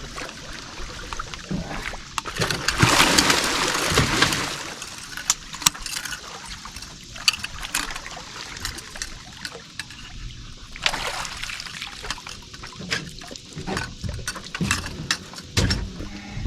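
Water splashing and sloshing with scattered knocks and clicks as a large blue catfish is brought to the boat, the biggest splash about three seconds in and another about eleven seconds in.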